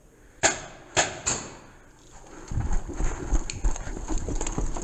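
Three sharp pops, each with a short ringing tail, in quick succession in the first second and a half, typical of paintball marker shots. From about halfway through, fast heavy footsteps thump on a staircase.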